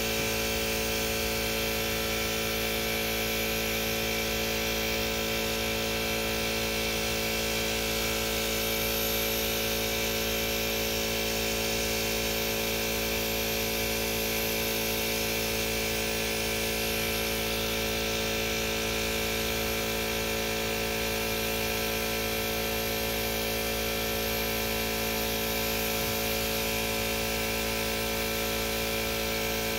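A steady mechanical hum, likely an air compressor running without a break, over a constant hiss of air from a gravity-feed spray gun spraying single-stage paint.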